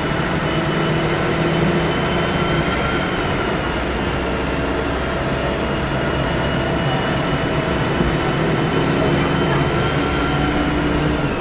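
A Volvo B10M bus's turbocharged diesel engine running under way, with a steady high turbo whistle over a dense engine drone. The engine note swells over the first few seconds and again near the end.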